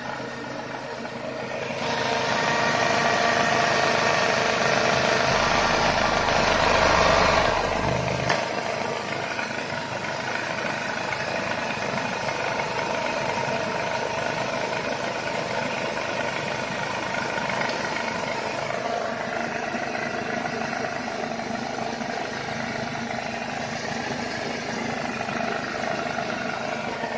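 Mercedes W203's 2.0-litre M111.951 inline-four petrol engine running with the bonnet open. It runs louder for several seconds, from about two to about eight seconds in, then settles back to a steady idle.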